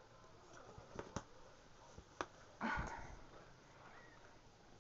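Faint movement sounds from a small dog shifting about in a blanket-lined cardboard box: a few light taps and a short breathy sound about two and a half seconds in.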